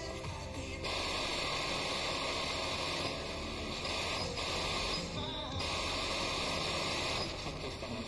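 Roadstar TRA2350P portable receiver's speaker hissing with FM static as it is tuned up the band between stations, the noise changing in character several times as the frequency steps on.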